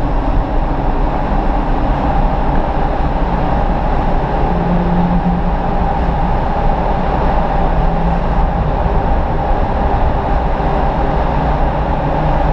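BMW 135i turbocharged straight-six with a BMW Performance exhaust, heard from inside the cabin as a steady drone under constant throttle, mixed with road and tyre noise in a tunnel.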